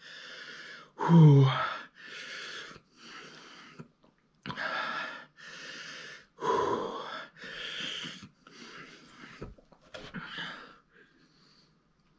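A man breathing hard and wheezing in and out through the mouth, about a breath a second, with a short loud groan about a second in, in pain from the heat of a Carolina Reaper chilli he has just eaten. The breaths grow fainter near the end.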